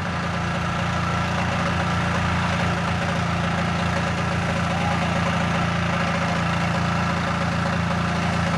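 Holden VN Commodore burnout car's engine held at steady revs while the car sits stationary spinning its rear wheels in a burnout, a continuous unchanging drone.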